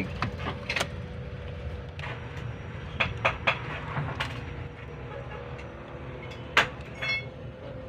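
Scattered sharp clicks and knocks of hands and tools working on truck wiring and connectors, a few close together about three seconds in and a single loud one near the end, followed by a short ringing tick. Under them runs a steady low hum with a faint steady tone.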